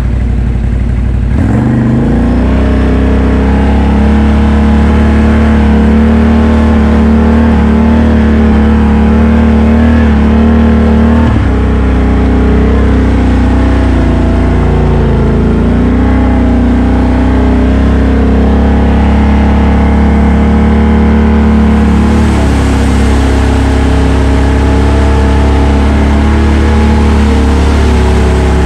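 ATV engine running under throttle, picking up sharply about a second and a half in and then rising and easing with the throttle as the quad rides the trail. Near the end the hiss of the tyres splashing through muddy water joins in.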